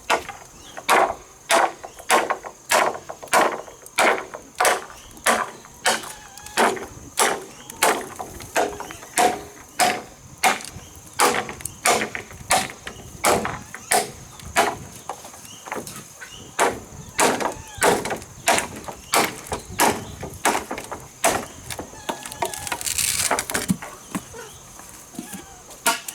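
Wood being chopped with a blade in a steady rhythm, about two blows a second.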